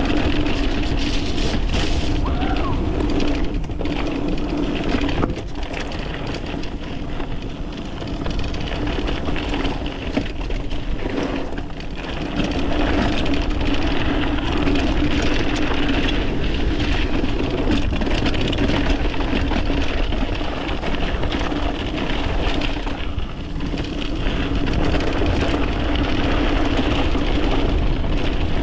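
Mountain bike riding down a dirt trail: tyres rolling over dirt and rocks, the bike clattering over bumps, and wind rushing over the microphone, with a steady buzz underneath.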